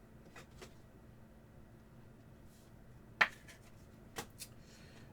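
Trading cards being handled on a table: a few faint clicks and one sharp tap about three seconds in.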